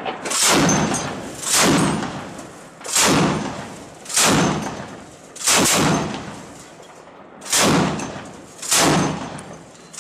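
Belt-fed heavy machine gun firing single shots, about seven in the span at uneven intervals of one to two seconds, each a loud sudden report with a long echoing tail.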